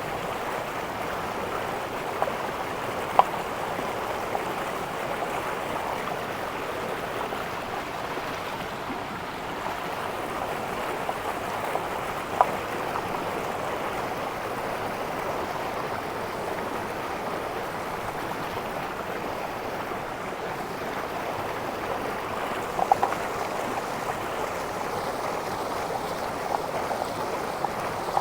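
A river flowing steadily, with a few sharp taps scattered through.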